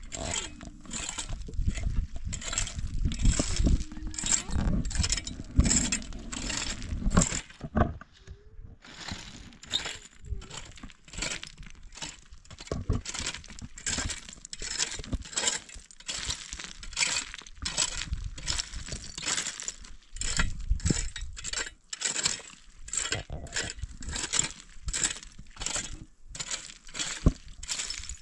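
Metal rake scraping and dragging across stony dirt, stones clinking and grating under the tines in repeated strokes of about two a second. A low rumble runs under the first eight seconds or so.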